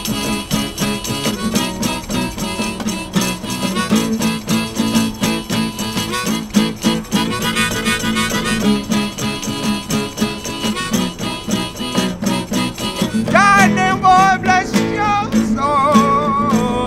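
Acoustic guitar strummed steadily under a harmonica break; in the last few seconds the harmonica grows louder with wavering, bent notes.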